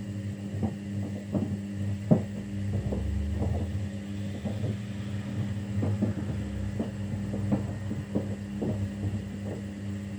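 Kunft washing machine on its quick 15-minute wash at 40 °C: the drum motor hums steadily while the drum turns, with irregular soft thuds of laundry tumbling inside.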